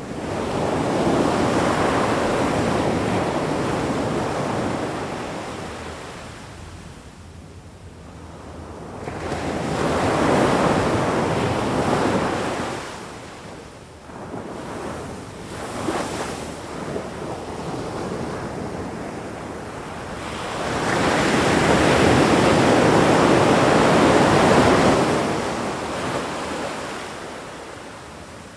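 Ocean waves surging and washing in, a steady rushing noise that swells and ebbs: one long surge at the start, one in the middle, one near the end, each several seconds long, with quieter wash and a few small splashes between.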